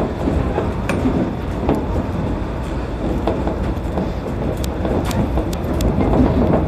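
Shonan Monorail suspended (SAFEGE) car running along its overhead track, heard from inside the cab: a steady rumble with scattered sharp clicks and rattles, more of them in the second half.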